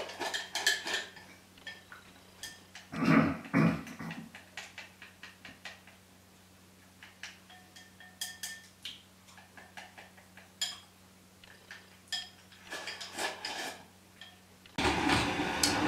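Chopsticks clicking and scraping against a ceramic rice bowl as rice is shovelled in: many quick, light clicks. Two heavier, duller sounds come about three seconds in, and a louder continuous noise starts near the end.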